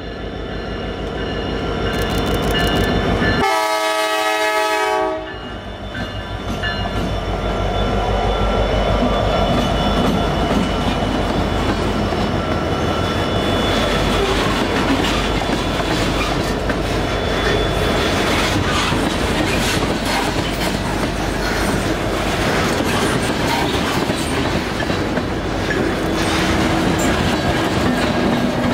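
Diesel freight locomotive sounding its horn in one blast about three and a half seconds in, then the train passing close by: steady engine and wheel rumble with the clickety-clack of tank-car wheels over the rail joints.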